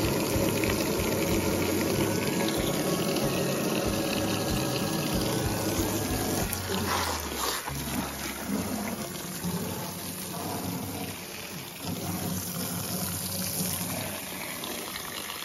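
Water gushing out of a boat's drain hose and splashing onto dirt ground.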